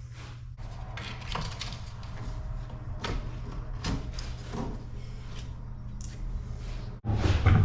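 Scattered knocks, clatter and rustling of objects being handled, over a steady low hum, with a louder thump near the end.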